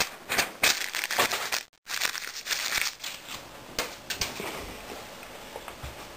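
Crinkling, rustling handling noise in a quick run of short rustles, cut off briefly about two seconds in, then settling to a few scattered ticks over quieter room sound after about four seconds.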